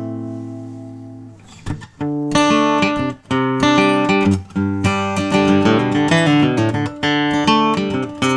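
Recording King acoustic guitar: a chord rings and fades away over the first second and a half, then after a short pause the guitar is played again in a steady run of picked notes and chords.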